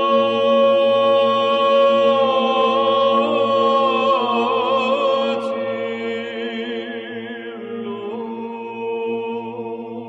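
Orthodox church chant: voices hold a steady low drone beneath a slow melodic line that ornaments and wavers in pitch around the middle, then settles.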